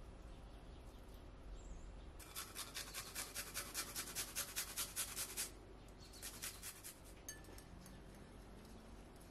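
Garlic clove grated on a small flat stainless-steel hand grater: a fast, even run of rasping strokes, about five a second, from about two seconds in, then a shorter run about a second later. Near the end a small wire whisk scrapes faintly through a creamy dressing in a ceramic bowl.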